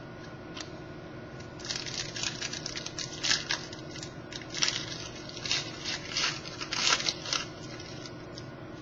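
Trading cards and their pack wrapper being handled: irregular crinkling and rustling that starts under two seconds in and goes on for about six seconds.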